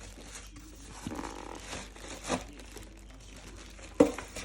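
Packaging being handled: crinkling and rustling with a few light knocks, and a sharper knock about four seconds in.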